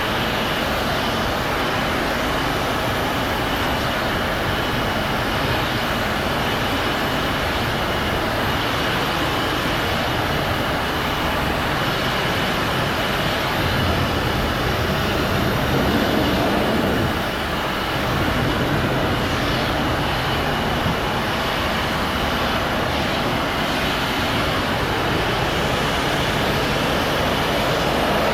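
Pressure washer running steadily, its high-pressure water jet hissing as it rinses siding, with a thin steady whine over the spray and a brief dip about 17 seconds in.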